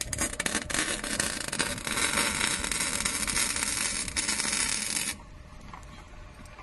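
Gas torch hissing loudly, with a few clicks near the start, then cutting off suddenly about five seconds in.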